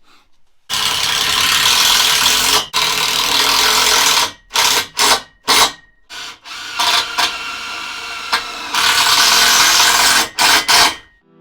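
Handheld power tool run in bursts with a hissing, rasping sound: a steady run of about two seconds, several quick on-off blips of the trigger, then longer runs that stop just before the end.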